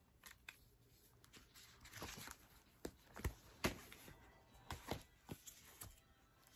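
Handling of an album photobook: paper pages rustling, and the card covers giving scattered soft taps and knocks as the book is closed and set down.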